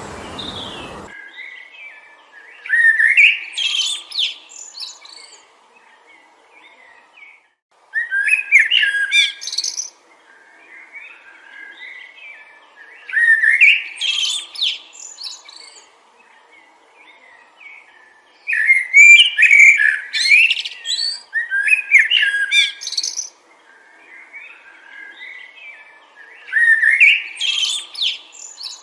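A songbird singing repeated phrases of quick, high, gliding notes, each about two seconds long and coming roughly every five seconds. Wind noise cuts off about a second in.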